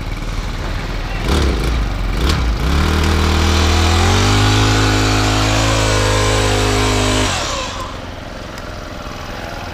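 Small petrol engine of a powered rope ascender revving up about two seconds in and running at high speed for about four seconds, then dropping back suddenly as the throttle is let off. A couple of short knocks come just before it speeds up.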